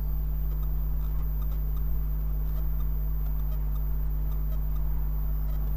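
MPCNC Z-axis stepper motors lowering the spindle slowly toward the touch plate during a G28 probing move, a steady low hum with faint scattered ticks.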